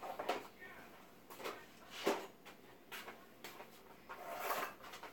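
Scattered light knocks, clicks and rustles of a phone camera being handled and re-angled, the sharpest knock about two seconds in.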